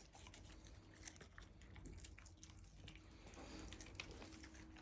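Dog chewing a sardine: faint, irregular wet crunching clicks.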